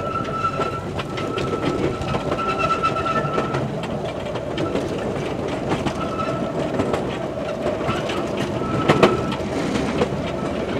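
Open passenger car of a small train rolling along the track: a steady rumble with the clickety-clack of wheels over rail joints, and a high squeal that comes and goes, longest over the first few seconds. A sharp knock sounds near the end.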